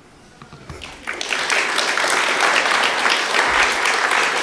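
Audience applauding, starting about a second in after a near-quiet moment and running on steadily.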